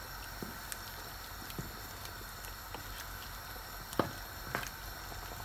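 Chicken curry simmering in a pan while a wooden spoon stirs it: a faint steady bubbling hiss with a few light clicks and knocks, the sharpest about four seconds in.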